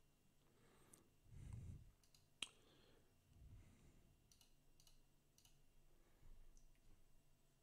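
Faint computer mouse clicks over near silence: one sharper click about two and a half seconds in, a few lighter ones between four and five and a half seconds, and some soft low thuds in between.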